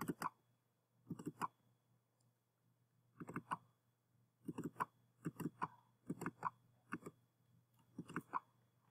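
Computer mouse button clicking in quick double-clicks, a pair of sharp clicks about every second, opening folder after folder.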